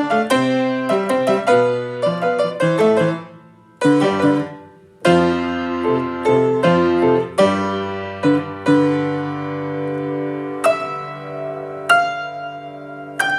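Piano playing: a quick run of notes, two brief pauses near the four- and five-second marks, then held chords over a sustained bass with single notes struck on top.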